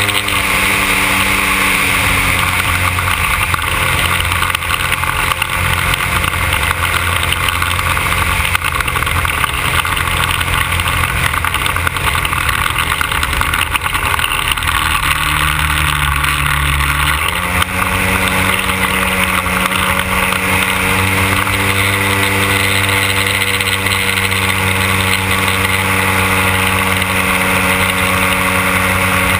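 The 100cc two-stroke petrol engine of a large radio-controlled Cessna Skylane 182 model running steadily. Its note drops a little in the first few seconds, then steps back up about 17 seconds in as the throttle is changed.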